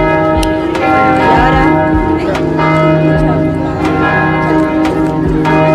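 Church bells of the Basílica de Luján ringing loudly: several bells sounding together, their tones overlapping and ringing on, with a fresh strike every two to three seconds.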